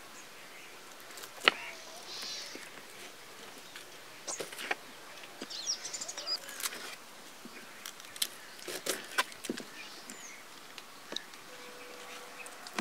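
Irregular sharp clicks of a knife on a plastic cutting board as shallots are sliced, the sharpest about a second and a half in, with birds chirping now and then.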